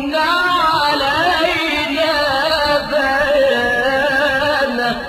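Melodic Quran recitation: a single voice draws out one long, ornamented phrase, its pitch wavering and bending throughout.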